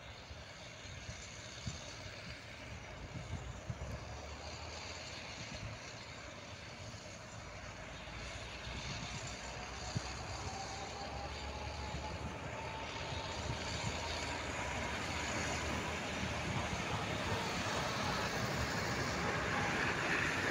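Grain combine harvester running as it cuts barley, its engine and threshing machinery growing steadily louder as it approaches. A faint whine comes in about halfway and rises a little in pitch.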